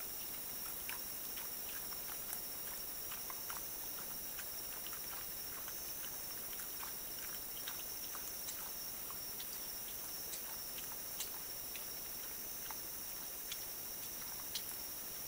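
Wild boar feeding at fermented-corn bait: small, irregular crunching clicks, several a second, over a steady hiss.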